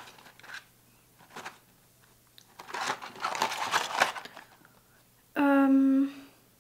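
Packaging of a box of supplement sachets crinkling as it is handled, for about two seconds from roughly the middle, with faint handling ticks before it. Near the end comes a short hummed "mm" from a woman.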